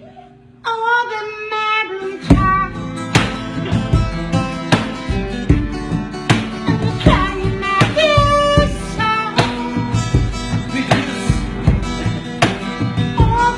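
Music: a melody comes in under a second in, then a steady drum beat joins about two seconds in and keeps time with plucked-string accompaniment.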